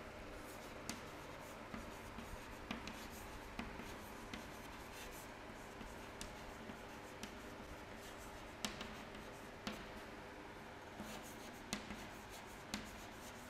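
Chalk writing on a chalkboard: faint, irregular taps and scratches as letters are written, over a steady low room hum.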